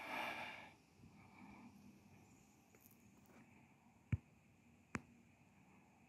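A hiker's short breathy exhale, then faint quiet broken by two sharp clicks about four and five seconds in.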